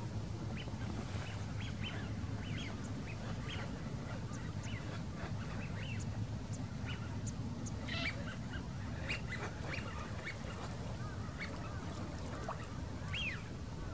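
Waterbirds on a lake calling: many short calls scattered throughout, some dropping in pitch, over a steady low rumble.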